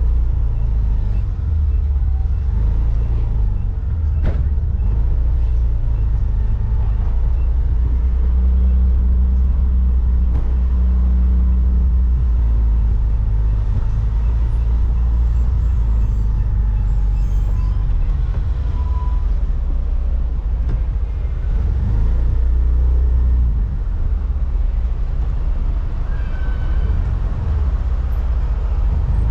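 Steady low rumble of a vehicle driving along town streets, with road and wind noise on the microphone. A single sharp click comes about four seconds in.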